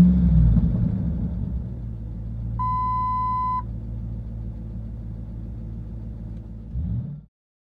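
A 2005 Ford Expedition's 5.4-litre three-valve V8 running at idle. A single electronic dashboard chime sounds for about a second near the three-second mark. The engine sound cuts off suddenly a little after seven seconds.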